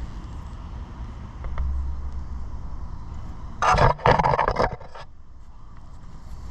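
Two short MIG tack welds on steel: a crackling burst of about half a second, then another of about a second right after it, near the middle.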